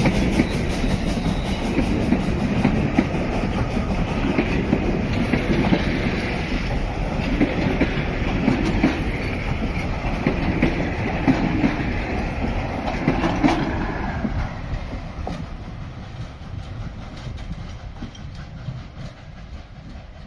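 Railway passenger carriages rolling past, their wheels clattering over the rails in a regular clickety-clack, then fading away as the train draws off up the line.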